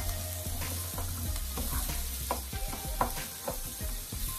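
Wooden spatula stirring diced carrots and onions sautéing in oil in a frying pan: a steady sizzle with scattered scrapes of the spatula against the pan.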